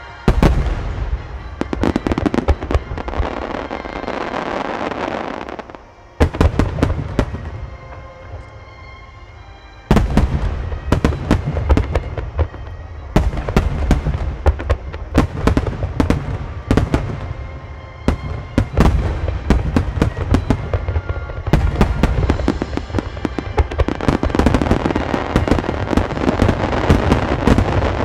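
A wide starmine fireworks barrage: shells launching and bursting in rapid volleys of booms and sharp reports over a continuous rumbling din. It thins out from about six to ten seconds in, then comes back thick and fast.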